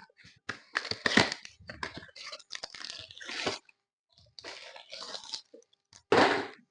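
Packaging of an anti-static mat kit being handled and opened by hand: irregular crinkling, crunching and tearing rustles in several spells, the loudest burst near the end.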